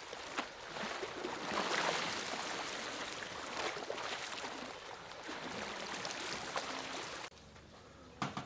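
Seawater surging over and draining off concrete harbour steps: a steady rushing and splashing that swells and eases. It cuts off suddenly about seven seconds in, leaving a quieter background with a couple of clicks near the end.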